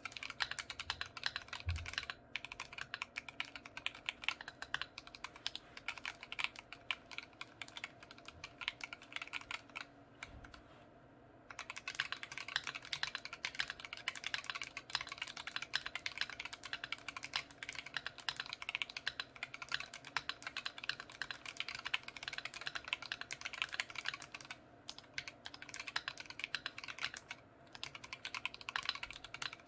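Fast, continuous typing on a D65 mechanical keyboard with lubed Kiwi tactile switches: a dense stream of key clacks, with one short pause about eleven seconds in and a couple of brief breaks near the end.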